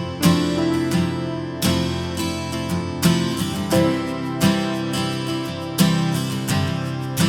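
Background music: acoustic guitar strummed in a steady rhythm, about a strum every 0.7 seconds.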